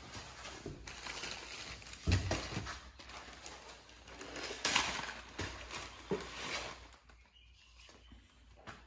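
Clear plastic packaging crinkling and rustling as race seat parts are unwrapped and pulled out of their bag, with a soft knock on the table about two seconds in; the rustling dies down near the end.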